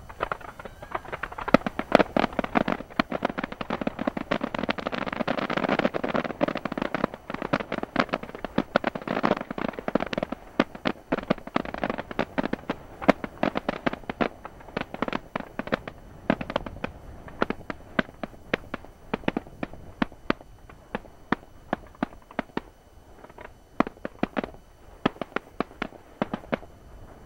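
Fireworks barrage: a rapid stream of shell launches and bursts, densest and merging together over the first ten seconds or so, then thinning to scattered separate bangs.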